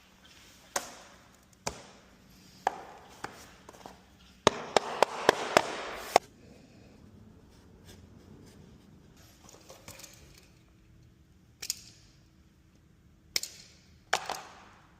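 Sharp knocks and taps, likely hand-tool work. About four and a half seconds in comes a quick flurry of strikes over a rasping noise, and there are a few more single knocks near the end.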